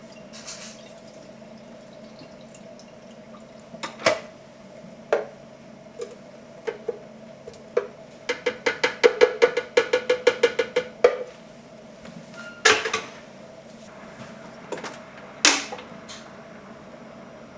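Plastic food-storage containers and lids being handled: scattered knocks and clicks, a quick run of about fifteen ringing clicks a little past the middle, and two sharper knocks later on, over a faint steady hum.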